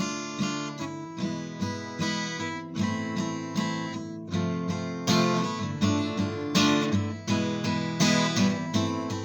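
Acoustic guitar strumming chords in a steady rhythm, about two strokes a second, playing an instrumental version of a song's melody.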